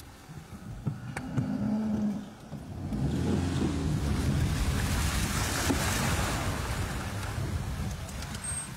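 A car moving along a flooded road: a low rumble, joined about three seconds in by a loud rushing hiss of wind and water from outside the car.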